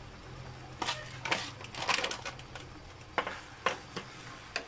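Wooden spatula stirring thick chili sambal in a frying pan, with a string of irregular knocks and scrapes against the pan. The knocks start about a second in and are thickest in the middle. A faint steady low hum sits underneath.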